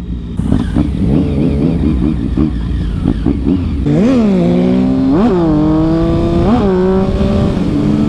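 Triumph Speed Triple 1050's three-cylinder engine, heard from the saddle with wind rush. For the first few seconds it runs low and uneven. Then it accelerates hard, the revs climbing and dropping sharply three times as it shifts up through the gears, and it settles to a steady cruise near the end.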